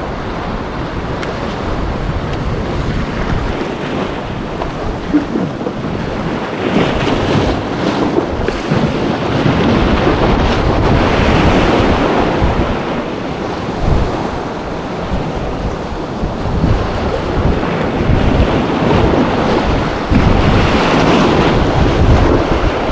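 Wind buffeting the microphone over the steady wash of sea water and waves, with gusts that swell and fade.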